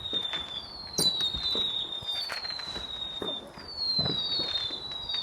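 A whistling firework giving off a string of falling whistles, roughly one a second, each sliding down in pitch, over scattered crackles and pops. A louder bang with crackling comes at the very end.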